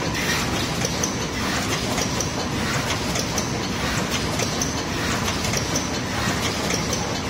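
Automated wet-wipes packaging line running, a lid-applicator delta robot and conveyor working: a steady machine noise with repeated sharp mechanical clicks.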